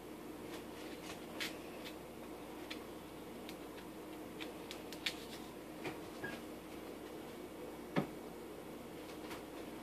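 Faint kitchen handling noises as small apples are cut with a knife and put into a blender jar: light clicks and taps of the knife and fruit, with one clearer knock about eight seconds in, over a steady hum.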